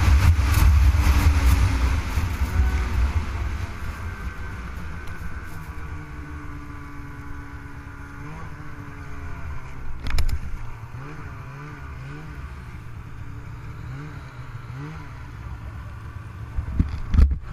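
Snowmobile engines running, loud at first and fading over the first few seconds to a quieter steady drone with small rises in pitch. A short knock comes about ten seconds in, and a louder one near the end.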